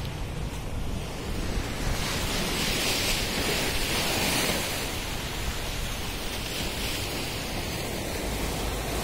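Sea surf washing onto a rocky beach, its hiss swelling as a wave comes in around two to five seconds in, with wind buffeting the microphone.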